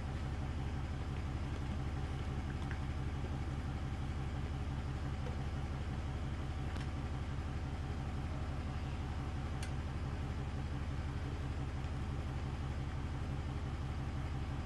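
Engine idling steadily at one speed, with two faint clicks near the middle.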